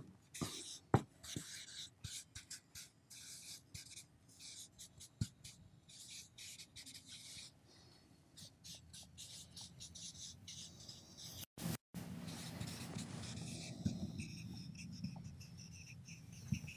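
Dry-erase marker writing on a whiteboard: faint rubbing strokes and small ticks as the letters go on, with a short total dropout of the sound a little over halfway through.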